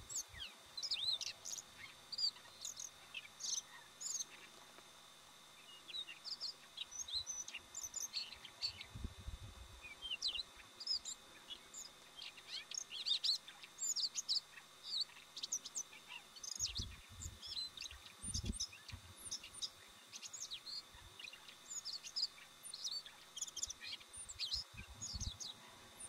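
Siberian rubythroat singing: a run of quick, varied, high-pitched chirping and warbling notes that goes on throughout, faint, with a few low thumps near the middle.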